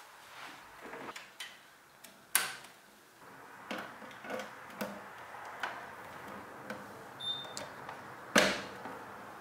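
Hands handling desk equipment and cables, giving scattered sharp plastic clicks and knocks. Two louder clacks come about two and a half seconds in and near the end, and a brief faint beep sounds a little before the second.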